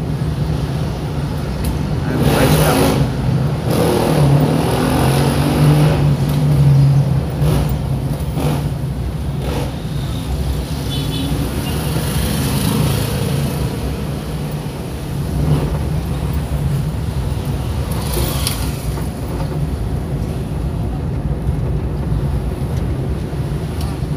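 Moving car's engine and tyre road noise: a steady low drone with a hiss over it, and a few brief louder rushes along the way.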